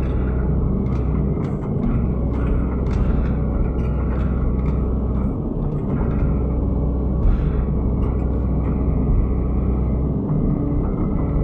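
Excavator's diesel engine running steadily under working load, with frequent short knocks and cracks from the machine as it works.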